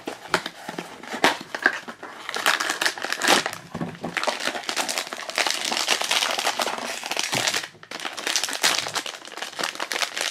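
Crinkly silver foil bag of a blind-box figure crinkling and rustling as hands handle and pull it open, with a brief pause about eight seconds in.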